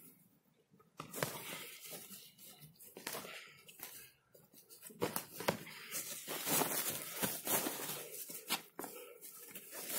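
Two boxers sparring: a quick run of sharp breaths, glove smacks and shuffling footsteps on grass, starting about a second in and loudest in the second half, when they close in on each other.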